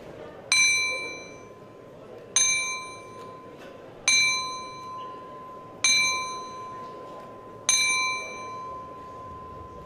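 Boxing ring bell struck five times at an even, slow pace, about one stroke every two seconds, each ring fading before the next.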